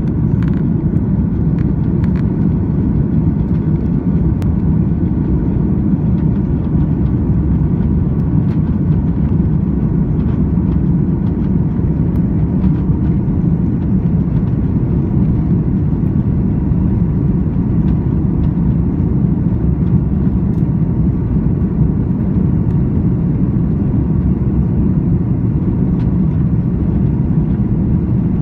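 Steady low cabin rumble of an Airbus A330-300 taxiing: engines at low thrust and the landing gear rolling over the pavement, heard through the fuselage, with a few faint clicks.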